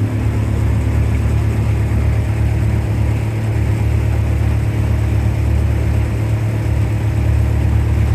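Motorboat engine running at a steady speed: a continuous low drone with a rushing hiss above it.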